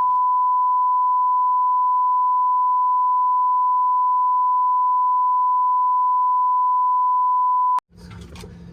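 A single steady electronic beep at one pitch, a pure tone, dubbed over the soundtrack with the original sound muted beneath it, like an editor's bleep. It cuts off sharply near the end, leaving faint background noise.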